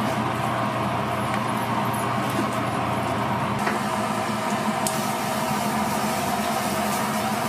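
Steady machine hum in a commercial kitchen. From about three and a half seconds in, the hot oil in a deep fryer sizzles and bubbles, a hiss that grows stronger about a second later.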